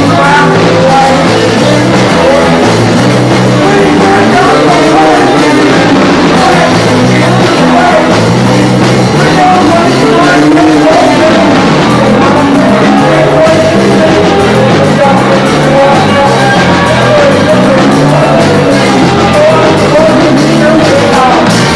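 Live rock band playing loud: singing over electric guitar and a drum kit.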